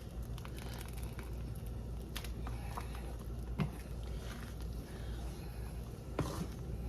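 Faint steady low hum with a few scattered clicks and taps.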